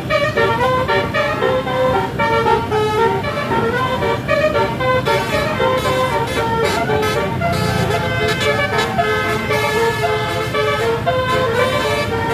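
A bus's 36-note Basuri telolet air horn plays a fast melody of stepped, quickly changing notes without a break, over the low running of the bus's engine.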